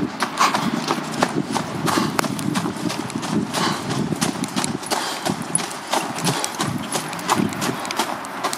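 Hurried footsteps crunching on gravel ballast and dry leaves, mixed with the clatter and clack of a moving freight train's wheels and cars on the rails, a dense run of sharp irregular clicks.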